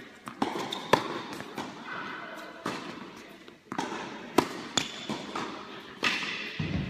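Tennis balls being struck by rackets and bouncing on a hard court, a series of sharp irregular pops echoing in a large indoor tennis hall; the loudest hits come about a second in and about four and a half seconds in.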